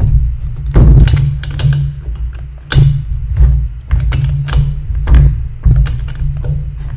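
Irregular knocks and clicks of hands and a tool working on the top of a Stihl MS250 chainsaw on a workbench, each with a heavy low thud.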